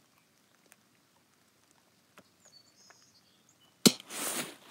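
A single sharp rifle shot about four seconds in, followed by a brief rushing noise; before it, only faint clicks and rustles of handling.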